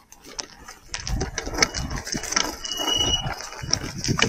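KuKirin V1 Pro e-bike rattling and clicking over a rough off-road trail, with low thumps from the bumps. A short high whine sounds about halfway through.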